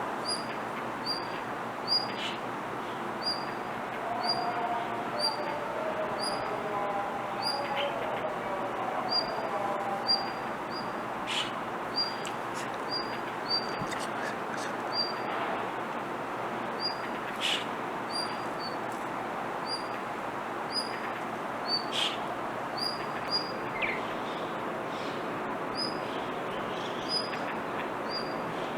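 Blue rock thrush calling over and over, a short high note repeated about one and a half times a second: a monotonous call rather than its full song.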